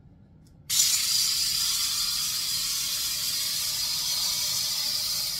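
The tiny twin motors and coaxial rotors of a small IR hand-controlled flying-figure toy helicopter switching on about a second in, then whirring steadily at a high pitch.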